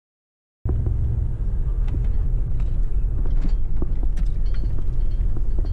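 Vehicle cabin noise while driving over a grassy field: a steady low rumble with scattered knocks and rattles, starting suddenly about half a second in.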